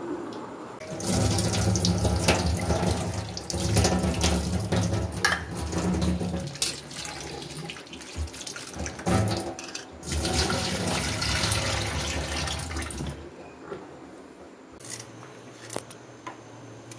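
A tap running onto a steel plate of onions in a sink while hands rub them clean. The water stops about thirteen seconds in, and a few light clicks follow.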